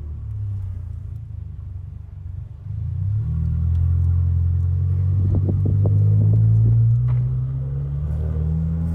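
Exhaust of a Golf GTI Mk7's turbocharged 2.0 EA888 third-generation four-cylinder under load while driving: a low, steady drone that gets louder about three seconds in. There is a short run of sharp pops midway, then the drone eases off briefly and builds again near the end.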